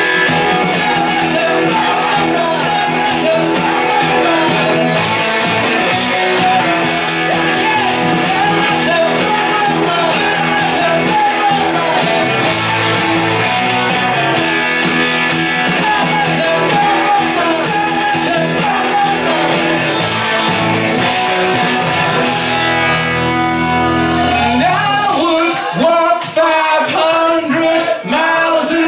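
Live rock band playing a cover with a male lead vocal, electric guitar, bass and drums. About 24 seconds in, the bass and drums drop out and voices carry on singing without the band.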